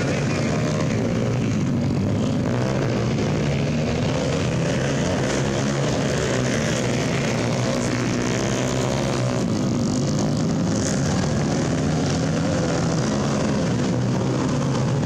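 Several dirt bike engines running together in a continuous, overlapping drone as the bikes race around the track.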